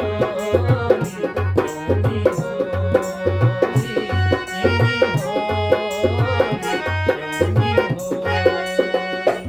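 Harmonium playing a held, reedy melody over a steady dholak rhythm of deep bass strokes, a Garhwali folk accompaniment.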